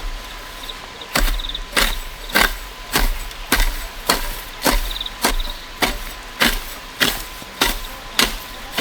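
Steady, rhythmic chopping of bamboo with a blade: sharp blows falling about every 0.6 seconds, beginning about a second in, with insects chirping faintly behind.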